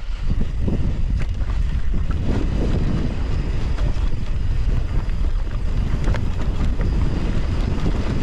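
Wind buffeting the microphone as a Trek Slash 7 mountain bike rolls down a dirt singletrack, a steady low rumble of wind and tyres on the trail with scattered small clicks and rattles from the bike.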